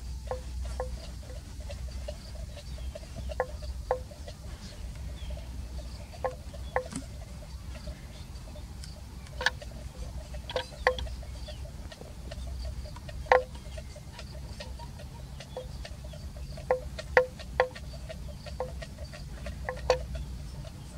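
A bell clinking now and then at one steady pitch, in single strokes and quick pairs at uneven intervals, over a low steady rumble.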